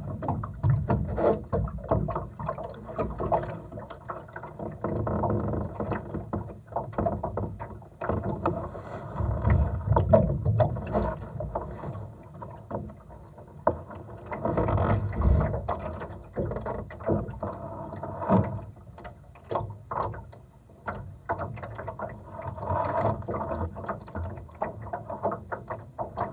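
Water lapping and gurgling against a Laser sailing dinghy's hull as it moves slowly in light wind. Frequent small clicks and knocks sound throughout, and the sound swells and fades unevenly.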